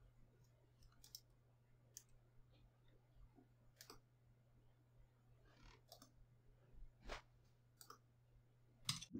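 Faint computer mouse clicks, single and scattered about a second apart, with a sharper click near the end, over a low steady hum.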